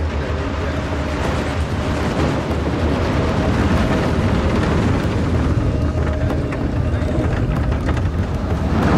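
Ride-film sound effect of a mine cart rolling along rails: a deep, steady rumble that grows slightly louder toward the end.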